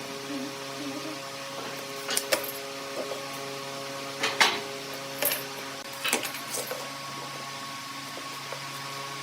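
A steady hum with about half a dozen sharp knocks and clicks in the middle part, the loudest a double knock around the halfway point.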